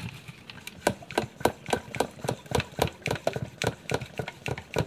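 Handheld pump-up pressure sprayer being pumped by its plunger: an even run of short strokes, nearly four a second, starting about a second in. Air is being pumped into the bottle to pressurise it for spraying.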